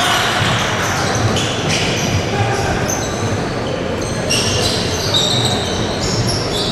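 Basketball game play on a court: the ball bouncing and players' shoes giving repeated short, high squeaks on the floor.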